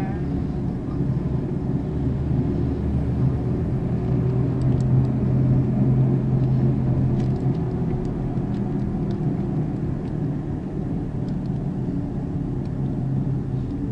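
Car cabin noise while driving: the engine and tyres give a steady low drone, a little louder in the middle.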